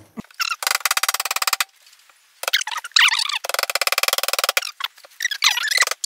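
Claw hammer driving small nails into a thin 3 mm MDF cabinet back panel, played fast-forward: three runs of very rapid taps, with high chirping sounds between them.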